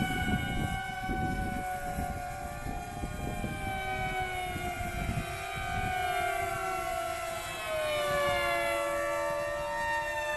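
Electric-motor propeller whine from several FPV racing flying wings in the air, overlapping tones that slide slowly down and back up as the planes pass. Wind buffets the microphone through the first half.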